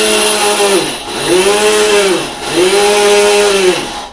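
Electric mixer grinder (mixie) grinding rock salt to powder, run in short pulses: its motor whine sags and picks up again about every second and a half.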